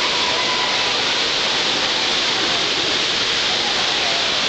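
Indoor fountain show's many vertical water jets spraying up and splashing back into the basin: a steady, even splashing hiss.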